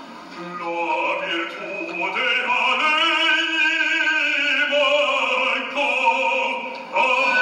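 Live opera: a bass voice singing with the orchestra. It enters about half a second in, holds a long note with vibrato, and a louder phrase starts near the end.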